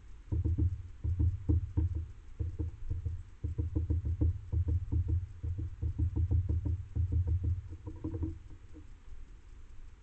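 Rapid, irregular tapping with low thuds, several a second, easing off a little past eight seconds in.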